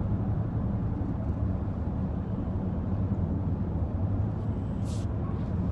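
Steady low rumble of background noise, with a short hiss about five seconds in.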